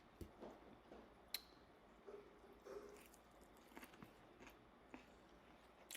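Faint chewing and mouth noises close to the microphone: soft, scattered wet clicks and smacks.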